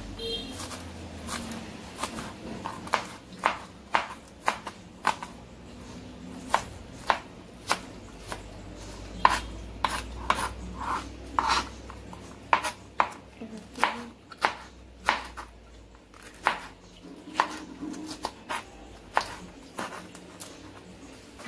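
Chef's knife chopping onion and pepper on a plastic cutting board: sharp, irregular knocks of the blade on the board, about one or two a second.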